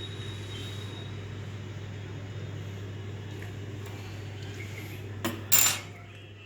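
Steady low hum on a workbench, then a click and a short, loud metallic clatter about five and a half seconds in.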